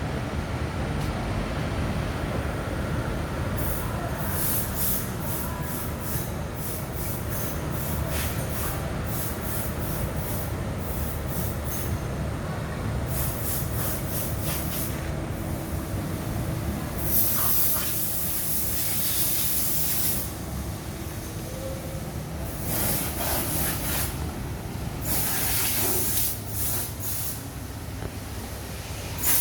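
A steady low machine rumble with many short bursts of hissing over it, some of the hiss bursts lasting a few seconds.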